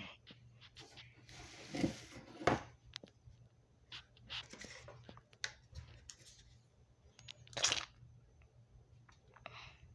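Scattered light clicks and brief rustles of plastic colanders and a plastic cup being handled, the loudest about three-quarters of the way through.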